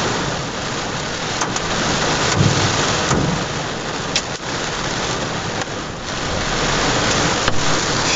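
Heavy rain pelting a GMC pickup truck, heard from inside the cab, with scattered sharp cracks of hailstones hitting the truck as the hail begins.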